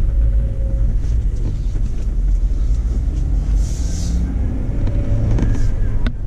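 Steady low road rumble and wind noise inside a JK Jeep Wrangler on the move, mixed with the Steelman 60635 wireless chassis ear receiver's speaker relaying its channel-three microphone. A faint whine comes through at the start and again about five seconds in: the vibration the owner traces to the light bar and A-pillar vibrating at the same frequency as the tires.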